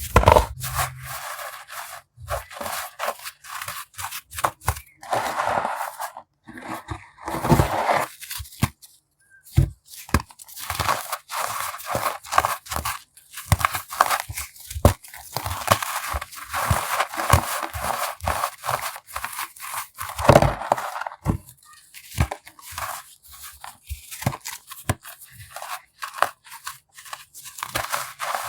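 Chunks of baked baking soda being crushed: a dense, irregular run of crisp crunches and crumbling, with a brief lull about nine seconds in.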